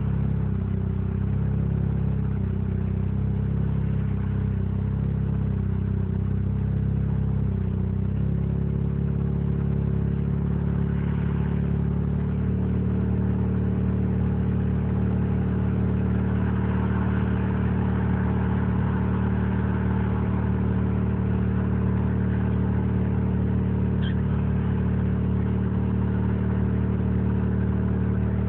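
Mazda 20B three-rotor rotary engine in an RX-7 idling roughly: the pitch wavers unevenly for the first several seconds, then settles to a steadier idle about ten seconds in.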